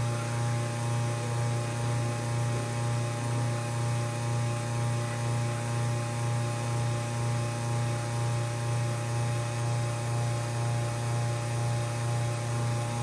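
Electric water pump motor on a water-vending processor running with a steady low hum and a slow, even throb.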